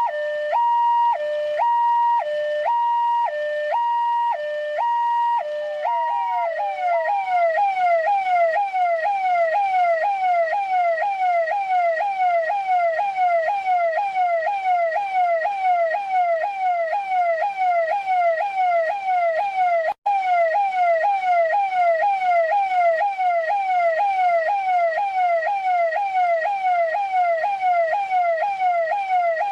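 Russian police car siren, first alternating between two tones about once a second. About six seconds in it switches to a fast repeating yelp of falling sweeps, about three a second. The sound drops out for an instant about twenty seconds in.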